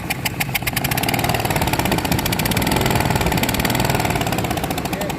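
Ford truck engine with a bad misfire being revved up and allowed to fall back, a rapid tick-tick-tick running through it that quickens as the revs rise.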